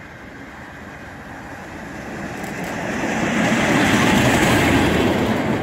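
British Rail Class 50 diesel locomotive 50049 approaching and passing close by. Its English Electric 16-cylinder engine and wheels build steadily to their loudest about four seconds in.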